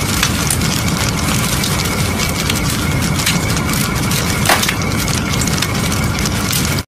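Crackling fire sound effect: a dense, steady run of small crackles and pops over a low rumble, with one sharper crack about four and a half seconds in.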